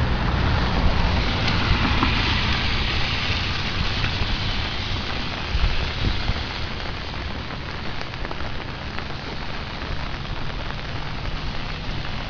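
Steady hiss of rain falling on wet pavement and grass, over a low rumble. The hiss grows louder for a few seconds about two seconds in.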